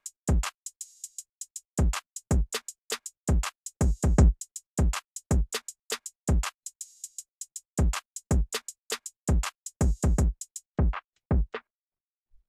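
Soloed drum track of a programmed boom-bap beat playing back: deep kick hits that drop steeply in pitch, with lighter high ticks between them. It cuts off suddenly about a second before the end.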